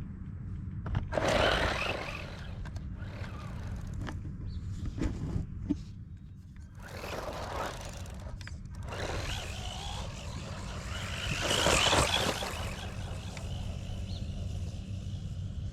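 Electric RC monster truck driving past on its test run, its motor and tyres surging four times, loudest about twelve seconds in, over a steady low rumble.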